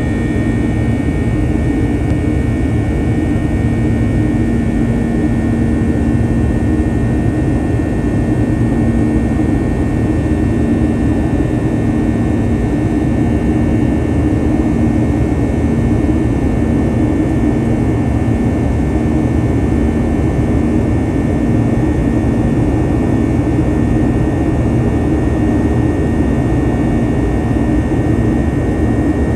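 Inside the cabin of a Boeing 737-800 in its climb after takeoff: the steady sound of its CFM56-7B turbofan engines and the airflow past the fuselage. It carries a steady low hum and a thin high whine.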